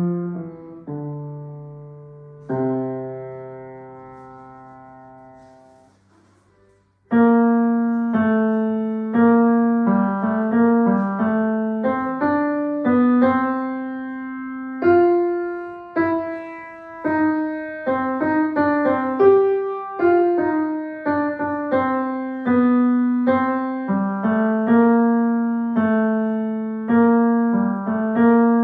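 Grand piano: a piece closes with a few chords, the last held and fading out over several seconds. After a short pause another piece begins, its notes struck about once a second over held lower notes.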